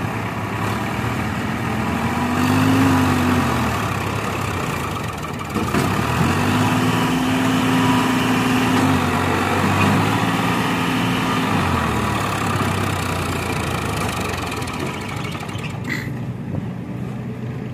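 Farmtrac 45 tractor's diesel engine working hard while pulling a loaded trolley out of a muddy pit. It revs up briefly about two seconds in, then revs up again and holds higher for about six seconds in the middle before dropping back.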